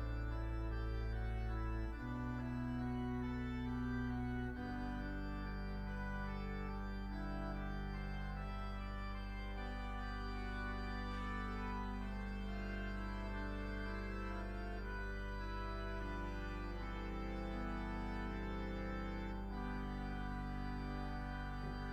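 Church organ playing slow, held chords over a deep, steady bass note, the harmony changing every few seconds.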